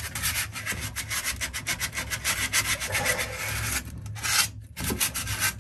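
Sandpaper on a hand sanding block rubbed rapidly back and forth across a copper water pipe, a quick run of rasping strokes with a couple of brief pauses near the end. The pipe is being roughed up around a pinhole leak so that epoxy putty will stick to it.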